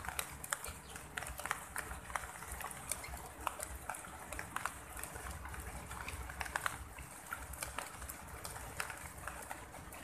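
Eurasian tree sparrows feeding on scattered rice on pavement: irregular short ticks, a few each second, over a low steady rumble.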